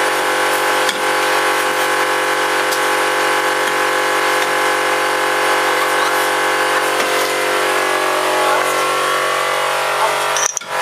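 A steady machine drone made of several held tones, with a few light knocks from handling parts, and a brief break near the end.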